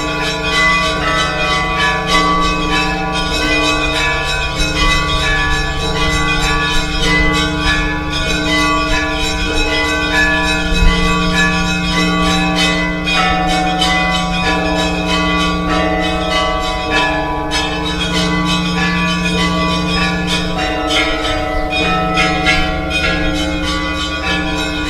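Orthodox church bells ringing in a continuous peal: many bells struck in quick succession, their tones ringing on and overlapping.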